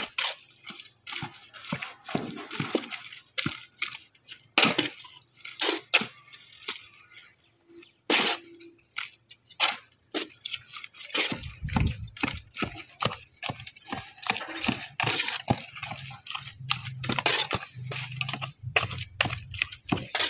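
Irregular clicks, knocks and clinks of masonry work, stone pieces and tools handled and tapped during natural-stone cladding. A low steady hum comes in about halfway through.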